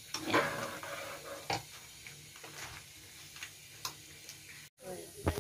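Metal spoon stirring a thick mung bean stew in a pan, with scattered light clinks and scrapes as the spoon knocks against the pan.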